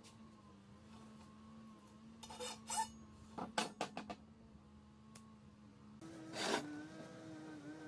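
Long steel coil spring being handled and bent by hand, its coils rasping against each other, followed by several sharp metallic clicks. A faint steady hum runs underneath.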